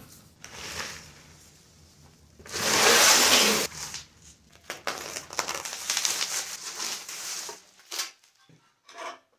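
Rustling and crinkling of packing material as a skid plate is unpacked: foam packing peanuts in a cardboard box and a plastic bubble-wrap bag being handled and pulled off. The loudest rustle comes about two and a half seconds in and lasts about a second, followed by a few seconds of lighter crinkling and a couple of short knocks near the end.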